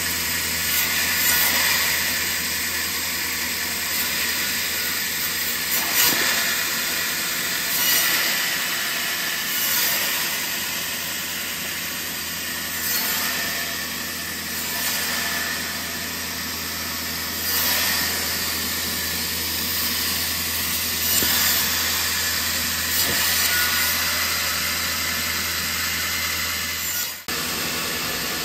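Band saw running with a steady motor hum, its blade cutting thin wooden slats one after another. The sound swells with each cut, every couple of seconds.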